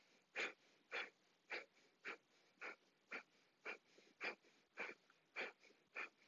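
Breath of fire: short, forceful exhalations snapped out through the nose, just under two a second and evenly paced, each a brief puff of air pushed out by pulling the navel toward the spine.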